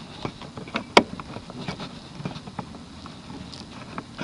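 Plastic bulb socket of a third brake light clicking and scraping as it is turned back and forth in the housing to find where it fits, with one sharper click about a second in.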